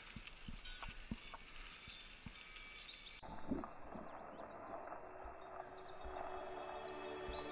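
Faint outdoor ambience with small birds chirping in short repeated notes. About three seconds in the sound changes abruptly to a steady hiss that slowly grows, as a mountain bike rolls along a gravel track.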